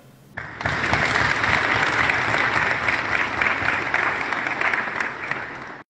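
Congregation applauding, a dense steady clapping that starts suddenly about half a second in and cuts off abruptly near the end.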